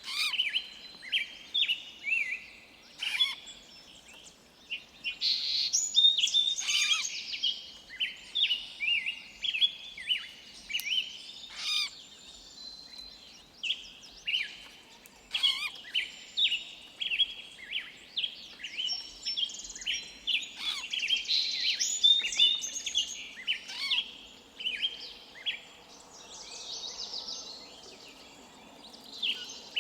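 Several forest songbirds chirping and calling in a busy chorus: many short, quick chirps and whistles overlapping, with a few sharper single chips among them.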